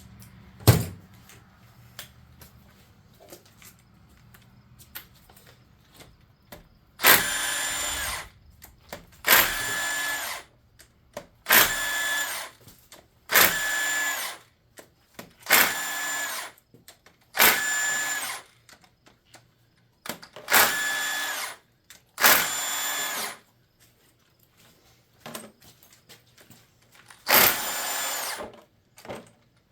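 Power driver or drill spinning in repeated bursts of a second or two, about ten in a row, each carrying a steady whine. A single sharp knock comes near the start.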